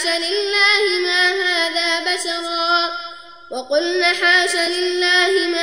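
A man reciting the Quran in a melodic chanted style, holding long, slowly wavering notes. He stops briefly for a breath about three and a half seconds in and resumes on a rising note.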